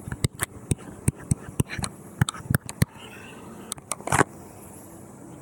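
Stylus tapping and clicking against a tablet screen during handwriting: a string of short, sharp, irregular clicks, with a longer scratchy stroke about four seconds in.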